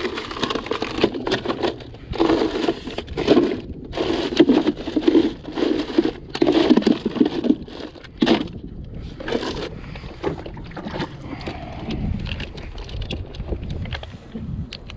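Irregular scraping, rustling and knocks of a fish being handled and stowed in an ice cooler, close to the microphone. The noise is busiest in the first eight or nine seconds, then dies down to a low rumble.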